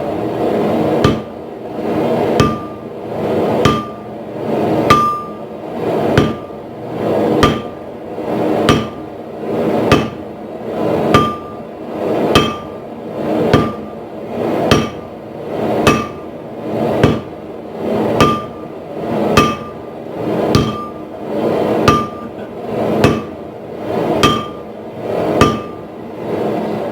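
Heavy sledgehammer blows on hot steel at the anvil, struck at an even pace of about one every 1.2 seconds. Each blow rings briefly over a steady rushing noise.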